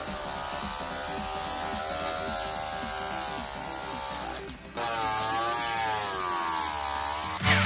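Small DC motor of a homemade drill running with a buzzing whine, its pitch wavering as its speed changes. It stops briefly a little past halfway, then starts again. Faint music plays underneath.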